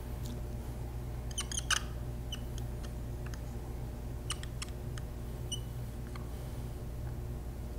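Dry-erase marker squeaking and ticking against a plexiglass sheet in short drawing strokes: a small cluster about a second and a half in, then scattered single squeaks. A steady low hum runs underneath.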